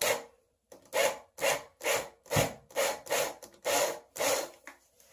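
A hand tool worked back and forth on wood in a steady rhythm, about two strokes a second.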